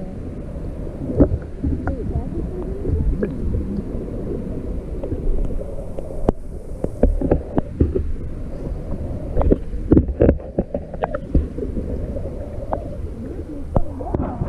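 Muffled low rumble of water picked up by a GoPro submerged in its waterproof housing, with scattered sharp clicks and knocks, several close together about ten seconds in.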